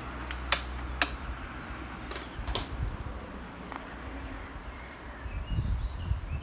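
Sharp clicks from road bicycles setting off, about four in the first three seconds. Low rumbling picks up near the end.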